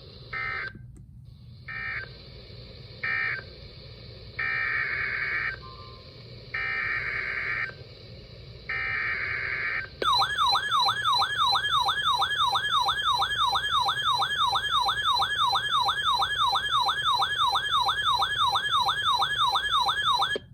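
Emergency Alert System data bursts: three short end-of-message bursts, then three longer SAME header bursts announcing the next warning. About ten seconds in, a loud warbling attention tone begins, sweeping up and down about three times a second.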